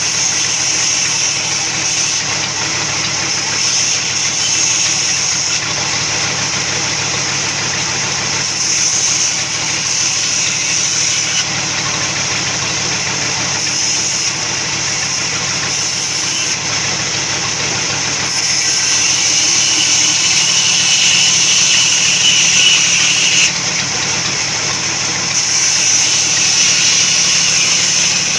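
Sawmill saw running steadily with a continuous mechanical noise, growing louder for a few seconds past the middle and again near the end.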